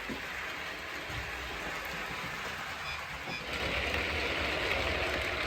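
Model 'Schools' class locomotive running on the layout's track: a steady rolling hiss and rumble that gets louder about three and a half seconds in.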